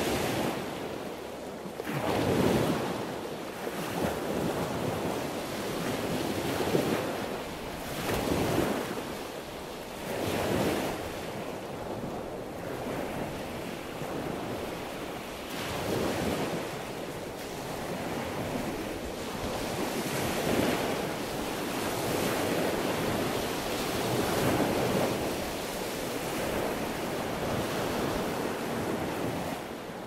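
Sea waves washing and breaking in a continuous surf that swells and eases every few seconds.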